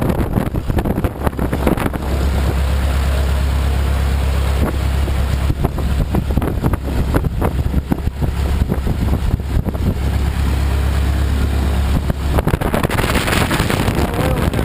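Lycoming O-290 air-cooled flat-four aircraft engine running on a ground run, turning the propeller, with a steady low drone and wind buffeting the microphone.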